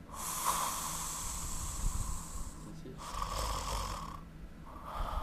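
A person snoring in sleep with harsh, noisy breaths: one long breath, a shorter one, and a third starting near the end. This is the snoring of an airway narrowed by enlarged tonsils, as in obstructive sleep apnea.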